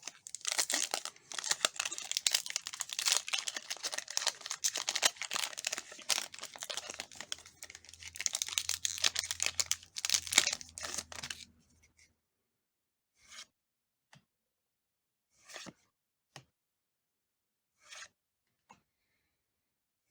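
Foil Pokémon booster pack wrapper being torn open and crinkled, with dense crackling for about eleven seconds. It then stops, and a few short, soft rustles follow about two seconds apart.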